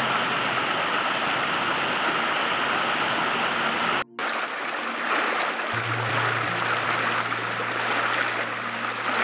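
Shallow rocky river rushing and splashing over stones, a steady rush of water broken by a short gap about four seconds in.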